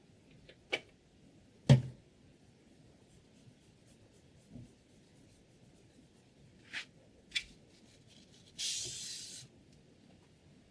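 Handling of a guided knife-sharpening system: a few sharp clicks, a loud knock a couple of seconds in, then one short scraping stroke of a stone along the blade near the end.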